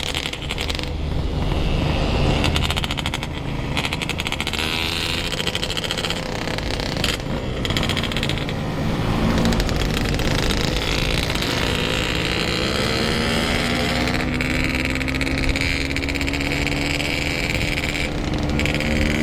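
Yamaha RX-King two-stroke motorcycle engine running on the move. Its pitch climbs steadily over the last third as it speeds up.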